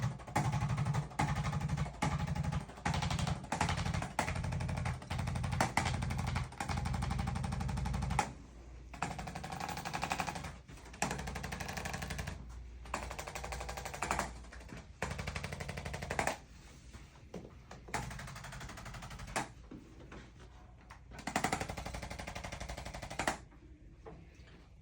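Handheld percussive device used for a chiropractic sinus adjustment, firing rapid strokes in repeated bursts of one to a few seconds, stopped and restarted many times. Loudest over the first eight seconds, quieter after.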